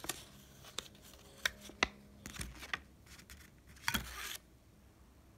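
Plastic ice cream cup and its printed lid being handled and peeled open: a string of small sharp crinkles and clicks, then a short rasping peel about four seconds in.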